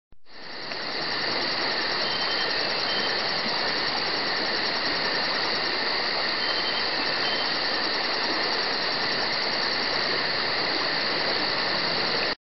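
A steady rushing hiss that fades in over the first second and cuts off suddenly near the end.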